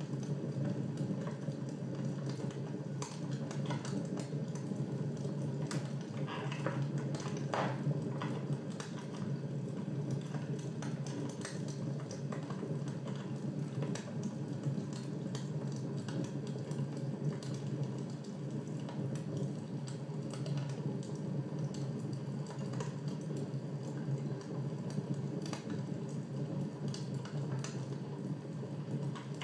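Fire crackling: irregular small pops and snaps over a steady low rumble.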